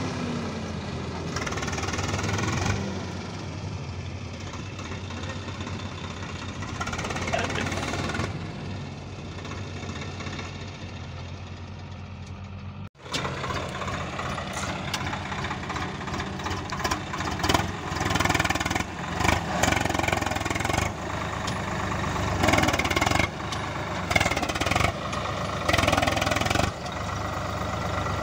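Swaraj 744 XT tractor's diesel engine running under load, pulling a trolley full of mud across soft ground. In the second half the engine note surges up and down repeatedly as the throttle is worked.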